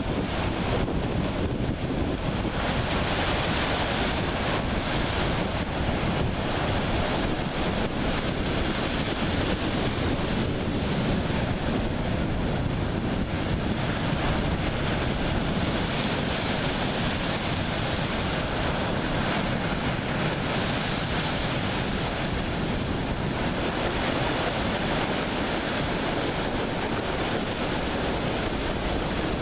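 Baltic Sea surf: waves breaking steadily along the shore, with wind buffeting the microphone.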